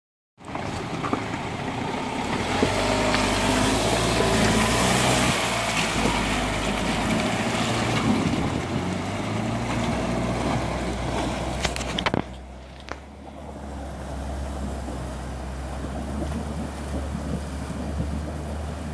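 Land Rover Defender engine running as the vehicle fords a river, its note rising and falling under the rush and splash of water around the wheels. About twelve seconds in the sound changes abruptly to a steadier low engine drone with much less water noise.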